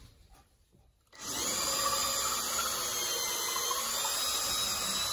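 Cordless drill starting about a second in and running steadily under load into a log post of the log furniture frame, its motor whine wavering slightly in pitch.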